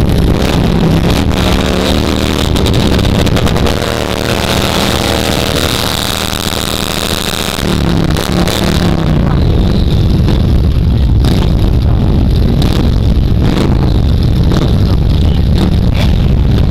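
Motorcycle engines revving and running, with a cruiser motorcycle doing a burnout about halfway through. The engine note rises and falls repeatedly in the first half and settles into a heavy, steady rumble after about nine seconds.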